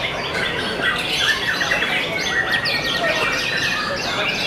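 Several caged white-rumped shamas (murai batu) singing over one another in competition: a dense, continuous mix of rapid whistles, trills and harsh notes.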